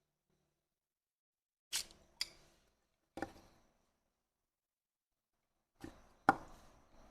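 Sharp clicks and knocks of plastic parts of an electric toothbrush being handled and fitted during disassembly: two close together, one more a second later, then a pair near the end, the last the loudest, with dead silence between.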